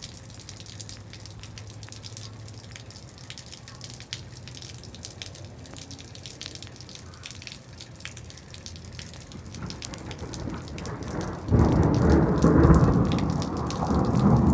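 Rain falling onto a concrete patio, with many small drop ticks over a steady hiss. About eleven seconds in, a much louder low rumbling noise comes in and lasts to the end.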